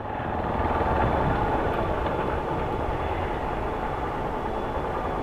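Motorcycle engine running on the move, mixed with steady road and wind noise; it swells over the first second and then eases off slightly.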